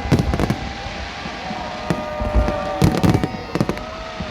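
Fireworks going off: irregular clusters of sharp bangs and crackles, a burst near the start, another about two seconds in and a denser run a little after three seconds.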